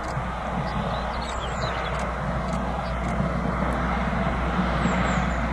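Narrow-gauge TU47 diesel locomotive running in the distance: a steady low engine drone that slowly grows louder as it approaches.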